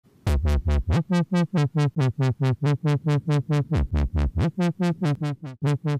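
Electronic intro music: a synthesizer plays short, even, repeated notes at about five a second over a deep bass.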